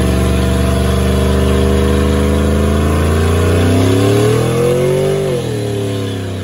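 Chevrolet Silverado pickup's engine held at high revs during a burnout, its rear tires spinning and smoking. The revs climb about three and a half seconds in, then drop off sharply just after five seconds.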